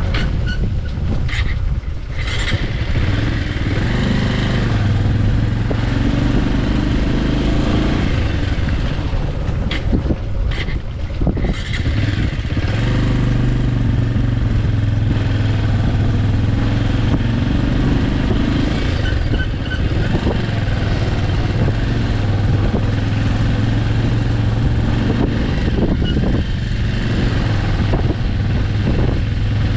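Single-cylinder Bajaj Avenger 160 Street motorcycle engine running steadily under way, with wind noise over the microphone; the engine note drops and picks up again about ten seconds in and near the end as the speed changes.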